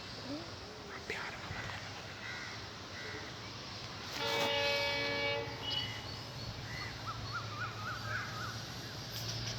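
WDP4D diesel locomotive's air horn sounding one steady blast of about a second and a half, about four seconds in, over the low steady hum of the locomotive's engine. Crows cawing and small birds chirping.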